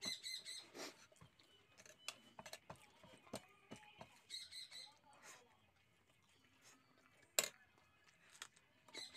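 Quiet eating sounds of a man eating noodles with his fingers from a disposable plate: soft chewing, lip smacks and mouth clicks. There are two short runs of rapid squeaky pulses, near the start and about four seconds in, and one sharp click about seven seconds in.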